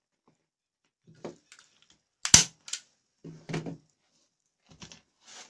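Scattered handling noises of a leatherette cover being stretched and pressed by hand over a bicycle saddle: short rustles and knocks, with one sharp click about two seconds in, the loudest sound.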